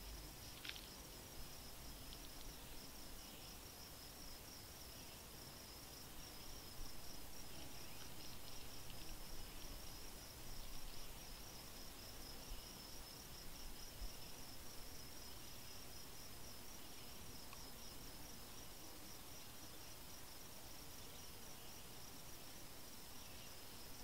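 Insect chirping outdoors in a steady, even, high-pitched pulsing rhythm that carries on unbroken, with a few faint short chirps scattered through it.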